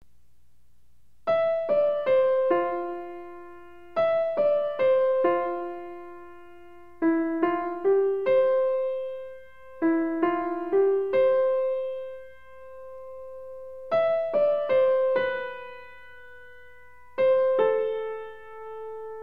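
Background piano music: a slow, simple melody in short phrases of a few notes, each note struck and left to ring out.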